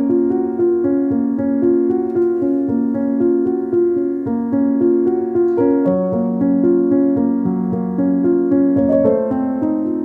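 Background piano music, a steady flow of overlapping notes.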